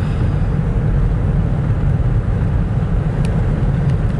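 Steady low rumble of a car being driven, heard from inside the cabin, with a faint click about three seconds in.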